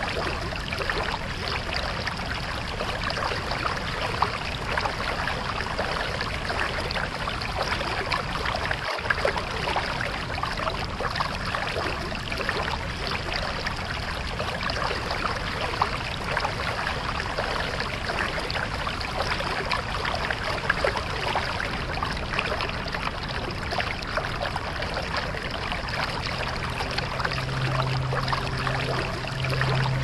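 Rushing river water: a steady, dense splashing rush of fast-flowing whitewater. Low sustained music tones come in faintly near the end.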